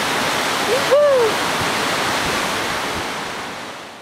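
Steady rush of breaking surf, with wind on the microphone. A short call that rises then falls cuts through about a second in. The sound fades out near the end.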